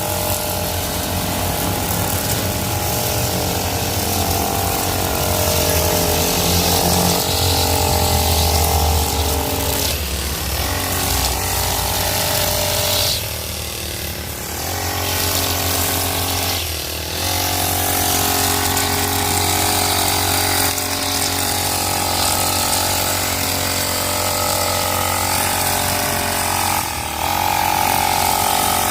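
Krisbow petrol brush cutter with a nylon string head running at high speed while cutting grass. The engine eases off briefly three times, twice near the middle and once near the end, then picks up again.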